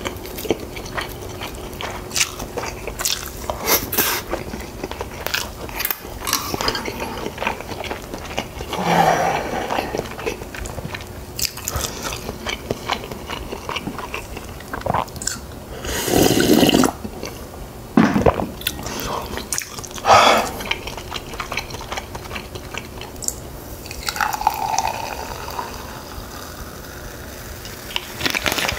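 Close-miked eating sounds: biting and chewing, with chopsticks and a spoon clicking against ceramic and glass bowls, and noisier mouthfuls every few seconds. Near the end, a drink starts pouring from a bottle into a glass.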